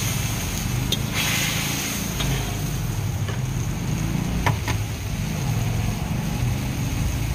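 Steady low roar of a gas wok burner under a wok of simmering gravy. A brief hiss comes about a second in, and a few sharp clicks, two of them close together about four and a half seconds in.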